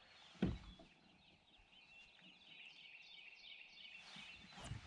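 Wild birds calling, a run of quick repeated chirping notes, over quiet open-water ambience. A single sharp knock about half a second in, and some rustling near the end.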